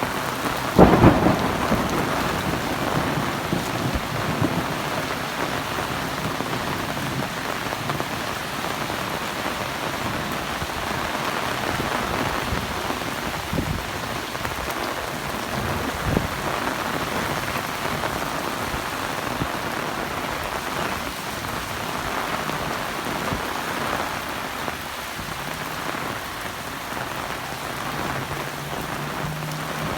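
Heavy rain falling steadily on surfaces, with a loud clap of thunder about a second in that rumbles away over a second or two.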